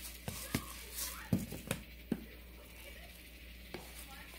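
Several sharp taps and knocks in the first two seconds, as the sesame-seed shaker is handled over the bowl. These are followed by a soft rustle of gloved hands starting to toss seasoned wild chives in a wooden bowl.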